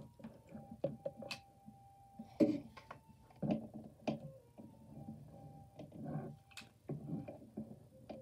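A flute playing faintly in the background, a series of long held single notes that step from one pitch to the next. Scattered light clicks and taps come through as a hot glue gun is worked and set down.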